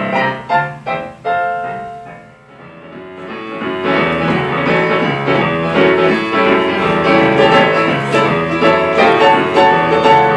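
Piano music played live on a digital stage keyboard: a few closing chords that die away, then about four seconds in a new dance tune starts with a steady bass line.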